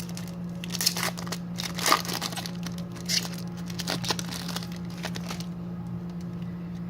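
Foil wrapper of a trading card pack being torn open and crinkled: a run of irregular crackling rustles that stops about five and a half seconds in.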